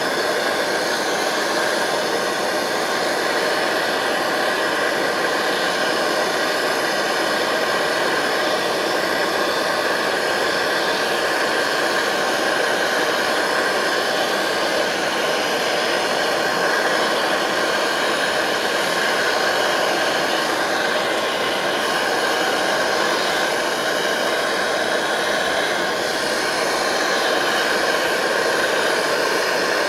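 MSR Dragonfly white-gas stove burning steadily at full output under a pot of water, a loud, even roar from its pressurised burner.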